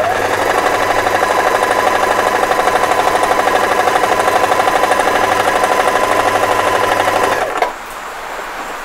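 Singer FM 2250 electric sewing machine running and stitching cloth, its needle mechanism going in a fast, even rhythm; it stops abruptly near the end.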